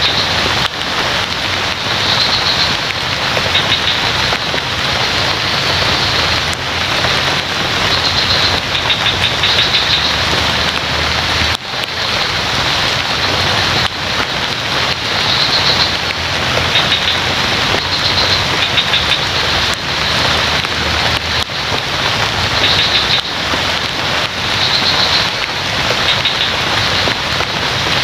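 Steady heavy rain falling on leaves. Short, high trilled calls from some small creature come through it again and again, every second or few seconds.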